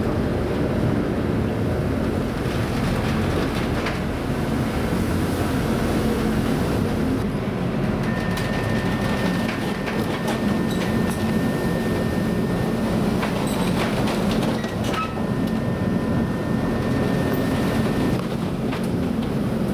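Steady low rumble of the rescue vessel's machinery and the storm sea, heard from inside the ship through its window, with occasional rattles and knocks. A thin, high, steady tone comes in about eight seconds in and stops a little before the end.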